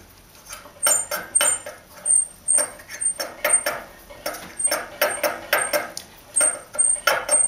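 Jointer cutterhead turned slowly by hand, its knives ticking lightly against a straight checking bar laid over the tables: a run of short, uneven metallic clicks, about two a second. The light tick is the sign that the knives are set at the right height, just grazing the bar.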